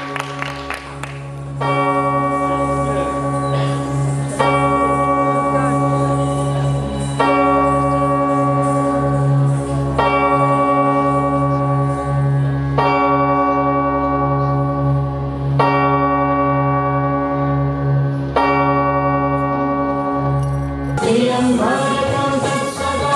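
Recorded dance accompaniment music: a steady low drone with a bell-like tone struck seven times, about every three seconds, each ringing on until the next. At about 21 seconds the drone stops and a new, busier passage of music comes in.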